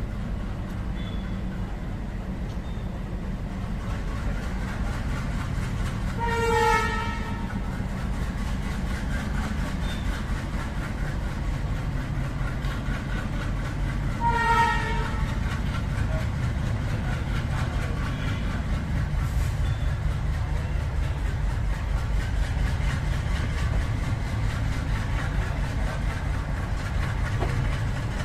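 Diesel locomotive engine running with a steady low rumble, heard from the coach coupled right behind it, with two short blasts of the locomotive's horn about eight seconds apart.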